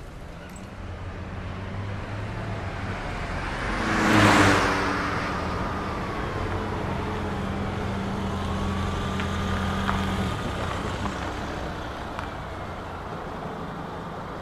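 A car passing by, its noise swelling to a peak about four seconds in, with a steady engine hum that carries on and fades out after about ten seconds.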